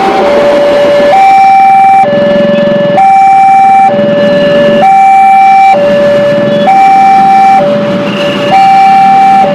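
Train horn sounding a two-tone call, alternating steadily between a higher and a lower note, each held about a second.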